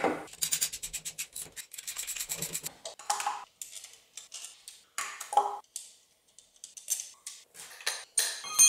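Hand tools working on a Chevrolet 350 small-block engine during teardown: a ratchet clicking rapidly for about two seconds, then scattered metal knocks and clinks as parts come off, ending in a ringing metal clink.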